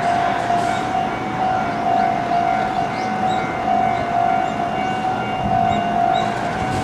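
Level-crossing warning alarm ringing a repeated electronic tone, just under two strokes a second, over steady vehicle and road noise.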